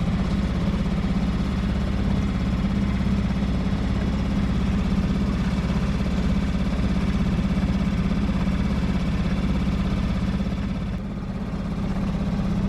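Fishing boat's motor running steadily at slow trolling speed, a constant low hum that dips briefly about eleven seconds in.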